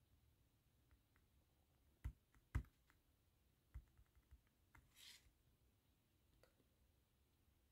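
Faint fingertip taps on a tablet's touchscreen against near silence: two sharper taps about two and two and a half seconds in, a few lighter clicks after them, and a brief soft hiss near the middle.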